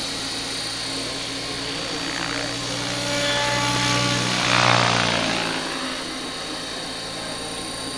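A 450-size electric RC scale Cobra helicopter is flying: a steady motor whine with rotor blade noise. It swells to its loudest about four to five seconds in as it comes close, and its whine falls in pitch as it goes by.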